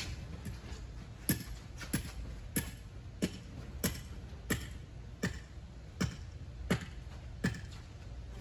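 A hammer driving a ground stake: about ten steady, evenly spaced blows, roughly one and a half a second, stopping near the end.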